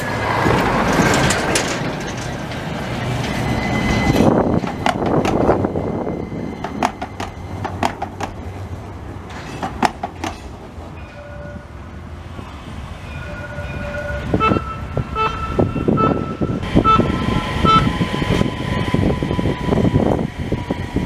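Modern low-floor electric trams passing on street track: the rumble of the passing cars, a run of sharp clicks from the wheels over the rails, and a series of short high steady tones in the middle.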